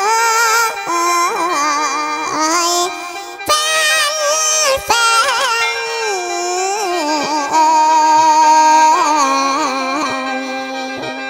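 A singer performing Isan lam-style singing, with long held notes, strong vibrato and sliding ornaments, over a steady sustained keyboard drone.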